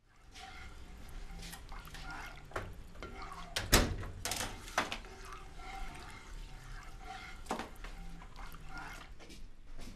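Kitchen sounds: a ladle stirring in a pot on the stove, with a few sharp clinks and knocks, the loudest a little under four seconds in, over a low steady background.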